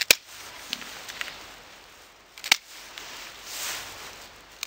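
Secateurs snipping Bonica rose canes: two sharp snips about two and a half seconds apart, with a couple of faint clicks between them and a soft rustle near the end.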